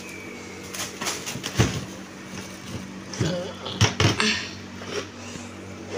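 Handling of a blue plastic storage drum and the plastic bag of flour inside it: rustling and a few knocks, over a steady low hum.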